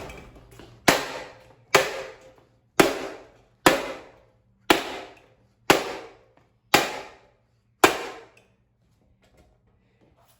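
A ceiling fan being smashed: about eight hard blows landing roughly once a second, each with a short ringing decay. The blows stop a little past two-thirds of the way through.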